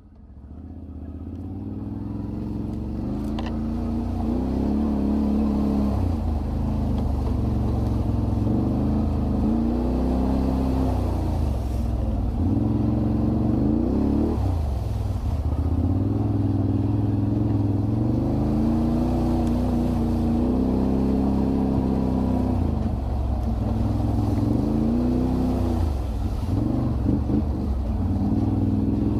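ATV (quad bike) engines running and revving, their pitch rising and falling again and again. The sound fades in over the first few seconds.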